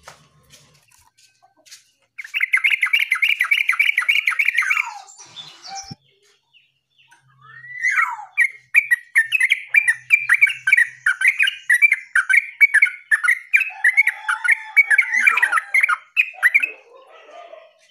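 Caged terucukan bulbul singing: a fast run of quick chattering notes starting about two seconds in and lasting nearly three seconds, then after a pause a longer string of quick notes lasting about nine seconds.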